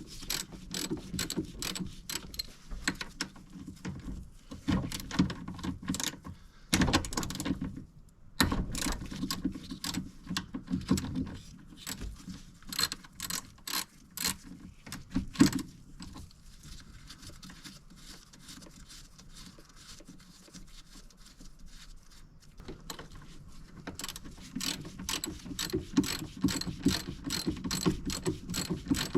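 Hand ratchet wrench clicking in quick runs, working fasteners, with a quieter pause of several seconds past the middle before the clicking picks up again.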